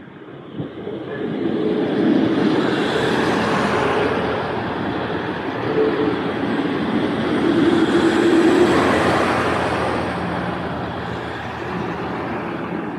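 Transport for Wales diesel multiple-unit train running alongside the platform, its underfloor engines and wheels on the rails growing loud within the first two seconds. It is loudest about two seconds and eight seconds in, then eases off near the end.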